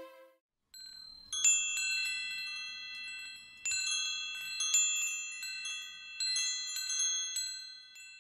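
Wind chimes ringing: clusters of high, bright metal tones struck about every second, each cluster left to ring on and fade.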